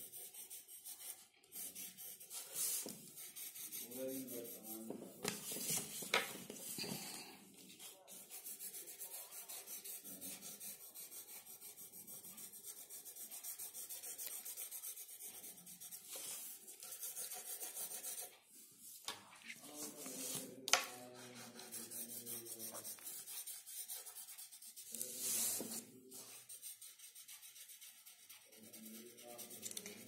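Pencil scratching and rubbing on drawing paper in quick shading strokes.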